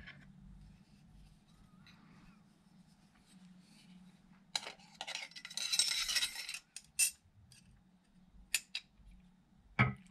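Metal clinking and a rattling clatter of hand tools and small engine parts being handled during an outboard water-pump repair. A dense run of clatter lasts about two seconds near the middle, followed by a few single sharp clinks, over a faint low hum.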